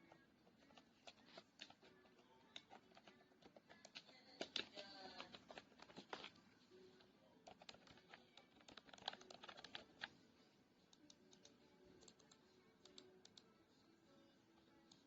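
Typing on a wireless keyboard with round, typewriter-style keycaps: quiet, irregular key clicks, with a denser run of keystrokes in the middle.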